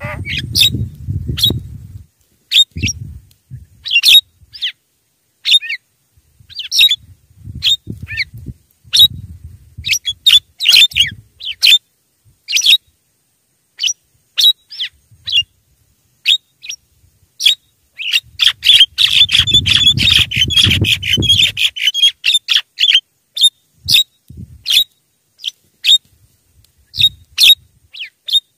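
Javan myna (jalak kebo) calling: a long irregular series of short, sharp, high calls, thickening into a dense burst of chatter about two-thirds of the way through. A low rumble comes under the calls at the start and again during the dense burst.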